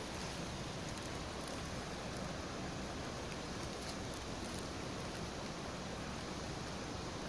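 Steady, even hiss of a small creek's flowing water, with faint rustling of streamside plants brushing close by.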